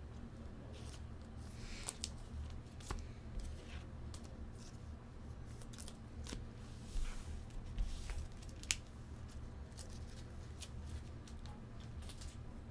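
Trading cards and plastic sleeves being handled at a table: scattered light clicks and a few brief rustles, over a steady low hum.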